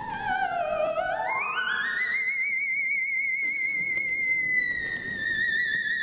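Theremin playing a single singing line: the pitch slides down, swoops up steeply about a second in, holds a high note with wavering vibrato, then drifts slowly lower near the end.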